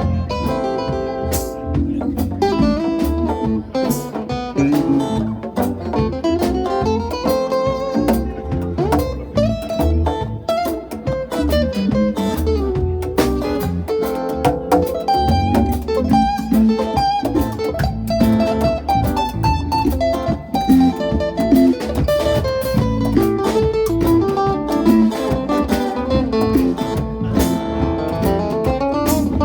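Live band playing an instrumental break: a lead guitar solo with bent, sliding notes over bass and drums.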